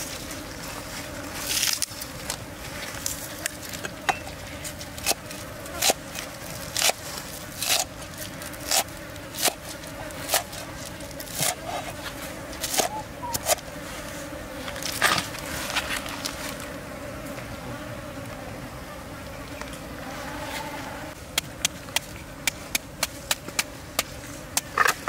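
A cleaver chopping green onions on a cutting board, single strokes about once a second, then a quick run of cuts near the end as a green mango is sliced by hand. A steady insect drone runs underneath.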